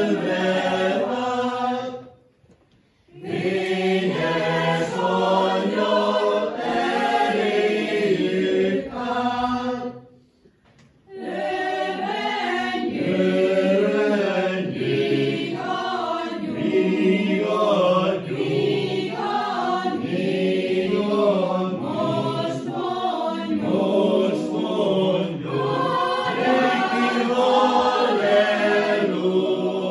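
Mixed church choir of men's and women's voices singing unaccompanied, breaking off twice for short pauses between phrases, about two seconds in and again about ten seconds in.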